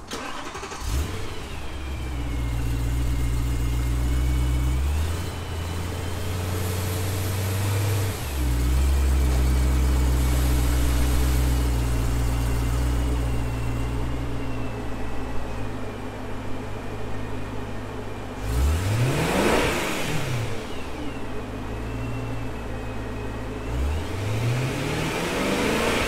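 BMW E92 M3's 4.0-litre V8 starting up about a second in and running at a steady idle that shifts speed a few times. It is revved up and back down twice, two-thirds of the way through and near the end. This is the test run after a new ignition coil was fitted to cure a cylinder-6 misfire.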